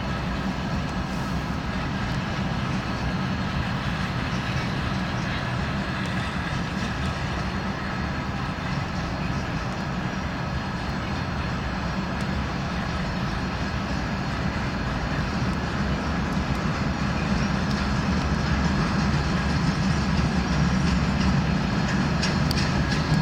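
Freight train of open gondola wagons rolling past on the track: a steady rumble of wheels on rail, growing a little louder near the end.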